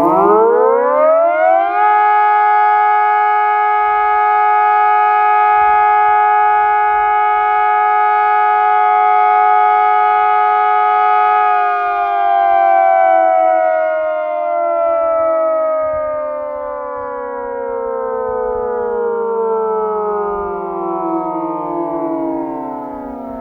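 Digitex DSE-2400S electronic civil-defence siren sounding the "Probe" test signal: several tones sounding together rise over about two seconds, hold steady for about ten seconds, then glide slowly down in pitch.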